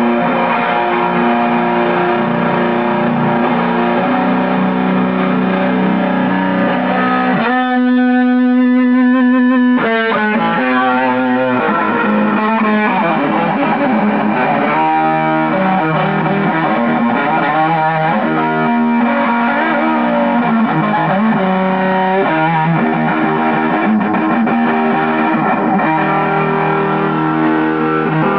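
Telecaster-style electric guitar played through a heavily modded Big Muff-style fuzz circuit built on a breadboard: heavy fuzz with a lot of sustain, the notes still clearly picked. Around a quarter of the way in, one note is held for about two seconds.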